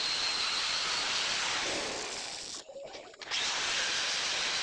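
Electric angle grinder running steadily with a high whine and hiss, its pad working the edge of a granite strip. The sound drops away briefly a little past the middle, then resumes.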